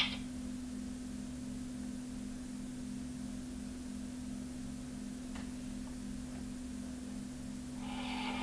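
Low, steady hum with a faint regular pulse, and a single faint tick about five and a half seconds in.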